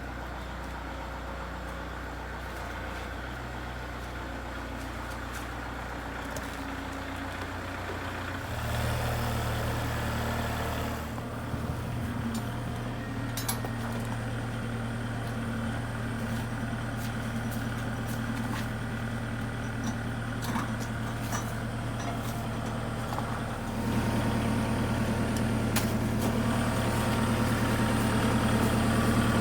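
Farm tractor engine running, its speed stepping up about 8 seconds in, easing back a few seconds later, and rising again near the end.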